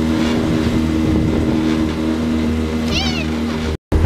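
9.9 hp outboard motor running steadily under way, with water and wind noise. About three seconds in, a short high-pitched squeal; the sound drops out for a moment near the end.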